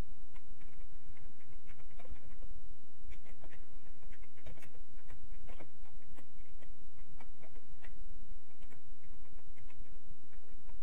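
Typing on a computer keyboard: irregular runs of light key clicks, over a steady low hum.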